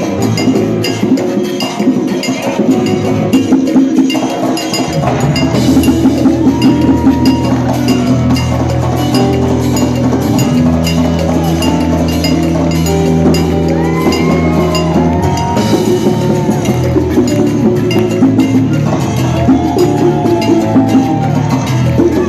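Live salsa band playing, with hand percussion and cowbell keeping the rhythm; a deep bass line comes in about five seconds in, and melodic phrases rise and fall over it later on.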